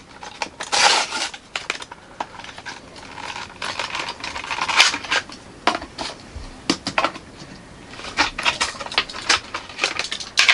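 Toy-car packaging being handled and opened: clear plastic window box and cardboard crinkling, rustling and clicking, in irregular bursts with many sharp clicks.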